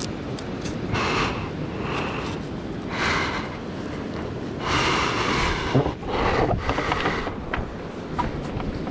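Ocean surf and wind on the microphone as a steady wash, broken by several short swells of rustling and a few sharp knocks close to the microphone from the surfboard and its leash being handled.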